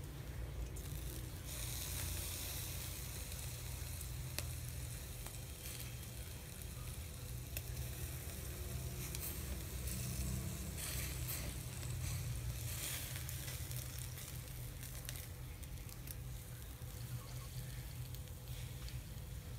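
Pork patties sizzling in a wire grill basket over charcoal, with scattered pops and crackles from fat dripping on the coals. A steady low rumble runs underneath.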